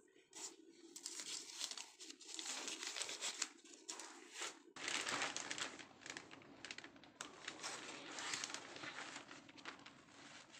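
Thin plastic sheet crinkling and rustling as it is handled and spread over shaped donut dough, a continuous run of crackles.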